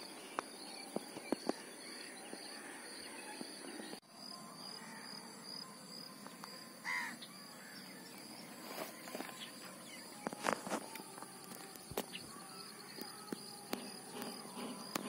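Quiet outdoor ambience: birds calling, with a crow-like caw about seven seconds in, over a steady, faintly pulsing high insect drone. Scattered light clicks and taps come more often in the second half.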